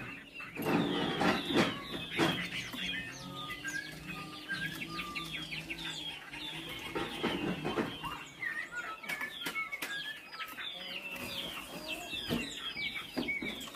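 Chinese hwamei singing a long run of short whistled notes that rise or fall, repeated quickly. A few louder rustling thumps come mostly in the first two seconds.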